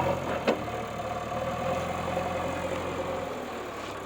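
JCB backhoe loader engine running steadily, with one sharp click about half a second in.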